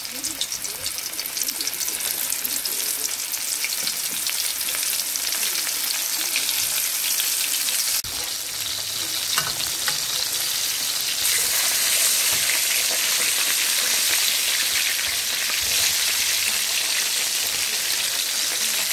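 Flour-dusted shark pieces frying in hot oil in a steel pot: a steady sizzle with fine crackling, which breaks off briefly about eight seconds in and grows louder a few seconds later.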